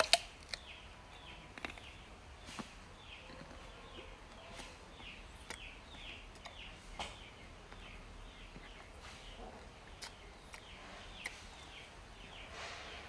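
Crisp bites into sour green fruit, the loudest right at the start, followed by scattered crunches while chewing. A bird repeats short falling chirps in the background.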